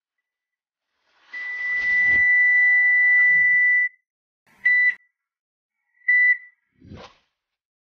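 A high, steady tone held at one pitch: one long tone of about two and a half seconds, then two short ones a little later, with rustling as the first begins and a soft knock near the end.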